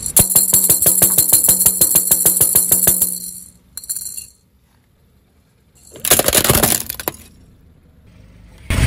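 A toy maraca shaken fast, a steady rattle of about ten shakes a second that stops about three seconds in. A few seconds later comes a loud crunching burst lasting about a second, the car tyre rolling over the toy drum and maraca.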